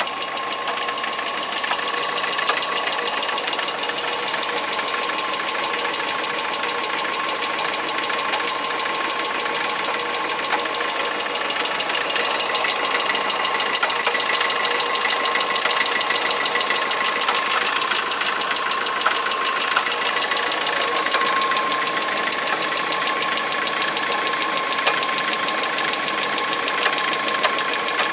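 Chery Amulet engine running steadily, with a steady whine and sharp knocks that come at irregular intervals rather than in time with the engine's rotation: an unidentified engine knock that the owner cannot diagnose.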